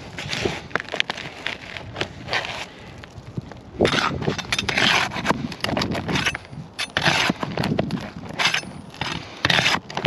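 Irregular scraping and clicking of a tool against asphalt roof shingles as roofing nails are worked out and the sealed shingle is pried loose.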